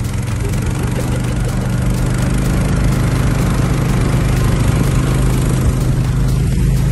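Small boat engine running steadily at an even speed, a constant low-pitched drone.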